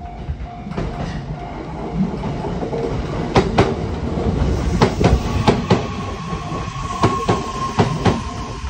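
JR Sagami Line E131 series electric train pulling in alongside the platform. The running noise rises, and from about three seconds in the wheels click over rail joints in quick pairs. A steady whine comes in about halfway.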